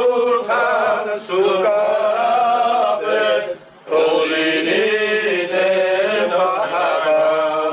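Voices singing a slow, drawn-out melody of an Armenian fedayi song, the notes long and wavering, with a short break about halfway through.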